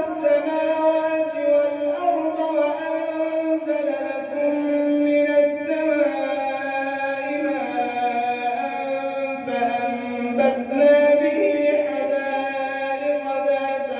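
A man reciting the Quran (Surat an-Naml) in melodic tajweed style. He draws out long sustained notes that rise and fall slowly.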